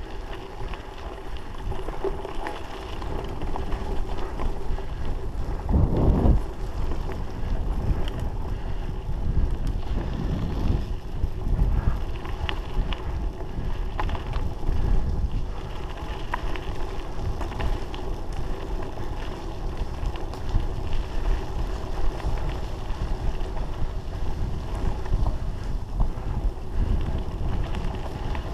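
Mountain bike riding fast over a rutted dirt track: wind rumbling on the microphone together with tyre and frame noise, with occasional knocks over bumps and a louder thump about six seconds in.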